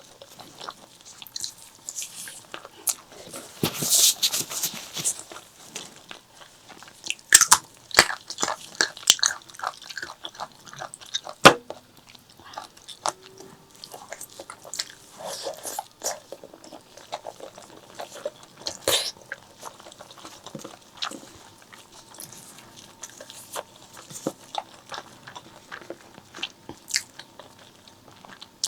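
Close-miked eating of pork leg curry with rice: chewing and biting, with many sharp mouth clicks throughout and a longer noisy stretch of chewing about four seconds in.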